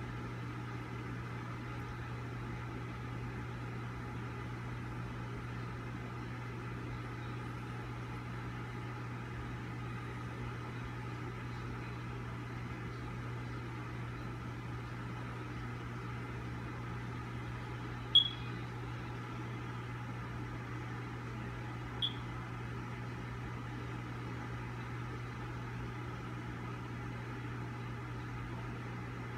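A steady low hum with a faint hiss, with two short high-pitched chirps about four seconds apart late on, the first louder.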